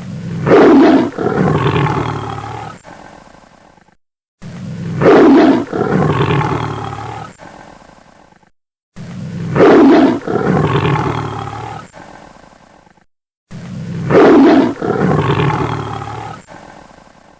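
Tiger roar sound effect, the same roar played four times in a row with short silences between. Each roar starts suddenly, peaks about half a second in, and fades out over a few seconds.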